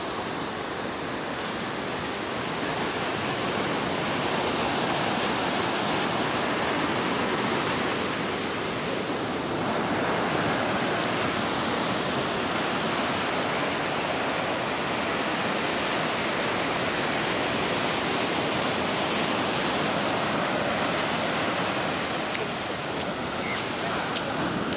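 Ocean surf washing up the shoreline: a steady rush of small breaking waves and foam around the feet.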